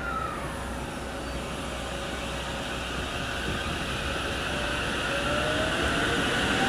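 A limited-express electric train pulls away from the platform, its running noise growing louder as the cars pass. From about five seconds in, a motor whine rises in pitch as the train gathers speed.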